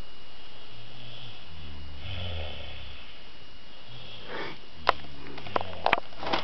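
A girl snoring: two low snores about three seconds apart, with several sharp clicks near the end.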